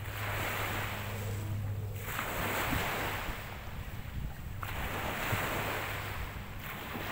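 Sea water washing in the shallows in about three swells, each rising and dropping away over a second or two, over a steady low hum.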